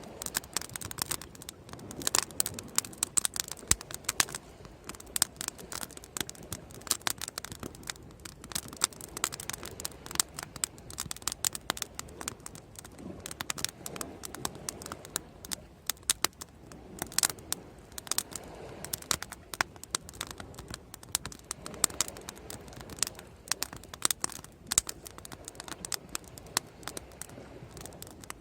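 Wood bonfire crackling, a dense, irregular run of sharp pops and snaps over a soft low rush.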